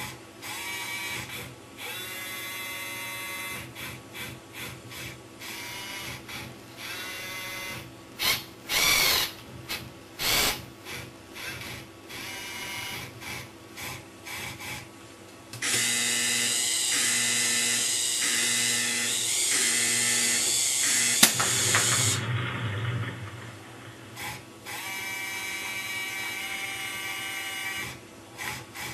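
A USB foam-dart missile launcher toy's small electric motors whirring in short stop-start bursts as the turret pans and tilts. About halfway through, a longer, louder run of the firing mechanism pulses evenly for several seconds and ends in a sharp snap.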